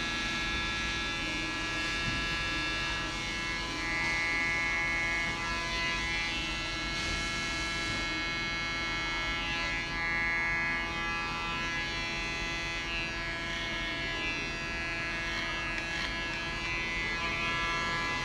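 Panasonic electric hair clipper running with a steady buzz as it cuts hair at the side of the head.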